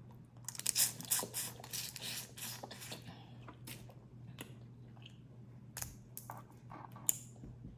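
Boiled crawfish being eaten up close: a dense run of wet cracking, squishing and chewing sounds as shells are broken and peeled and the meat chewed, easing after about three seconds into scattered sharper clicks, over a faint steady low hum.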